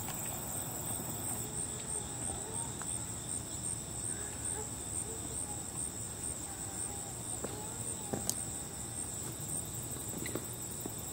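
Steady high-pitched insect chorus, a continuous drone with no let-up.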